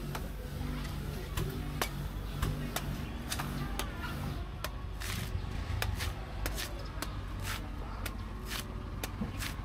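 Knife strokes shaving the husk off a young green coconut: a string of short, sharp chops, coming faster after about four seconds, over a low steady background hum.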